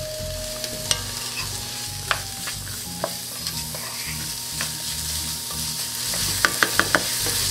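Diced onion, carrot, celery and garlic sizzling in olive oil in a frying pan while a wooden spoon stirs them, scraping and tapping against the pan. A quick run of four taps comes near the end.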